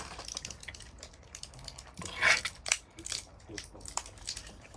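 Rustling of fabric and light knocks as clothes and belongings are handled and rummaged through, with the loudest rustle a little over two seconds in.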